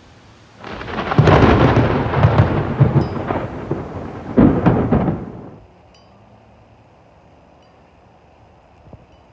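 Thunder: a loud clap about a second in that rumbles for several seconds, with a second sharp crack about four and a half seconds in, then dies away. Faint wind chimes tinkle afterwards.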